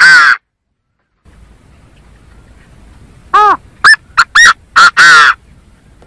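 Recorded gà gô (partridge) call repeating: the tail of one phrase at the start, then a pause, then a full phrase about three seconds in. The phrase is one longer note, several short quick notes, and a longer harsh final note, all loud and clear.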